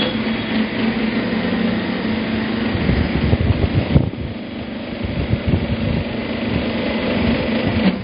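Hose crimping machine's motor and hydraulic pump running with a steady hum while the dies close on a hose fitting. The hum dips briefly about four seconds in and drops off near the end.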